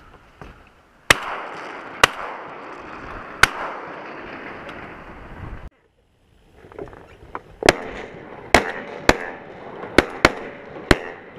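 Shotguns firing at ducks: three sharp shots about a second apart, then, after a brief break, six more in quick succession, over a steady rushing noise.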